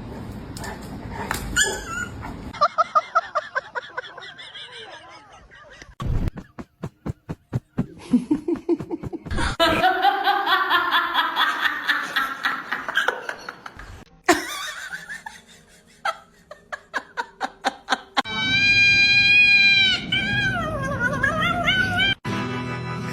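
Bursts of human laughter mixed with a pet animal's cries, in a string of short separate sounds; a steady pitched tone rings out near the end.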